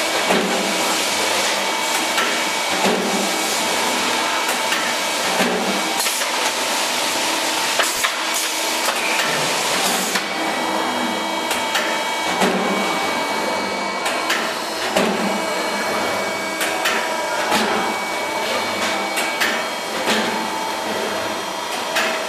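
Die-cutting press cutting sandpaper sheets, running with a steady machine hum and a heavy cutting stroke about every two and a half seconds.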